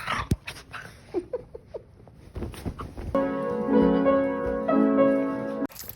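Keyboard instrument playing held chords, starting about three seconds in and cutting off abruptly near the end, after a few scattered clicks and faint short sounds.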